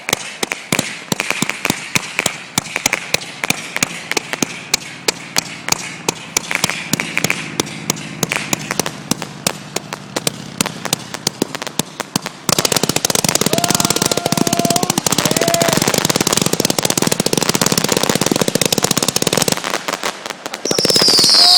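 A 220-shot 'Pirates Revenge' consumer firework cake firing: a rapid string of shots and bursts, several a second. About halfway through it breaks into a denser, louder, continuous crackling barrage, which grows louder again near the end.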